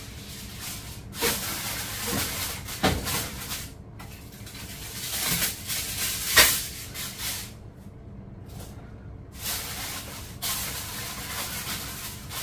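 Aluminium foil crinkling and rustling in bursts as a sheet is handled and pressed down to cover a pan, with a sharp crackle about six seconds in.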